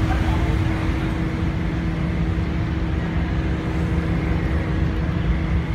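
Engine of a river car ferry under way: a steady, unbroken low drone with a constant hum.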